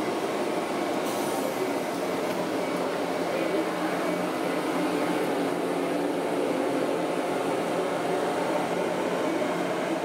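Steady hum of electric commuter trains standing at station platforms, mixed with the even background noise of the station.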